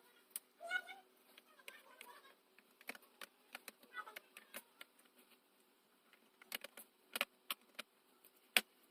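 Scattered light clicks and taps, coming thicker and louder in the last few seconds, with a few faint short chirps in the first couple of seconds.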